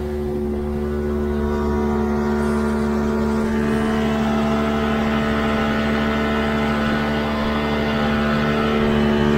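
Boat engine running at a steady speed, with a rushing hiss that builds from about two seconds in.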